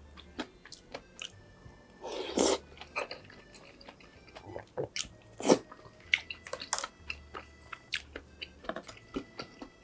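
Close-miked eating sounds: a person biting and chewing food, with many small crunchy clicks and two louder, longer bursts of mouth noise about two and five and a half seconds in.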